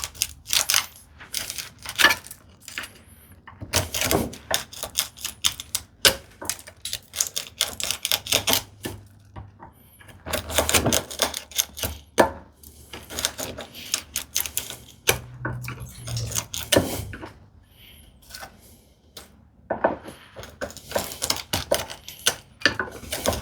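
A narrow steel bevel-edge chisel levering and scraping waste chips out of a hand-chopped mortise in wood, making quick runs of clicks and scrapes in bursts with short pauses between them.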